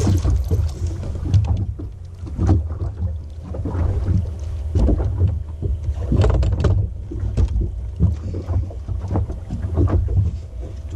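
Small fishing boat on open water: a loud, uneven low rumble with scattered knocks and clatters.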